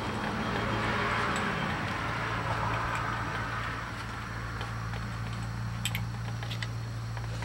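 A steady low hum with a hiss over the first three seconds. A few light clicks about six seconds in as a bit is changed in a cordless drill's chuck.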